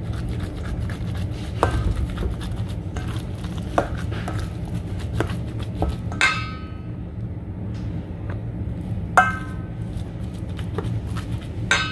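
A metal spoon stirring mashed potato filling in a stainless steel bowl: soft scraping and small clicks, with three sharp ringing clinks as the spoon strikes the bowl's side, about six seconds in, about nine seconds in and near the end. A steady low hum runs underneath.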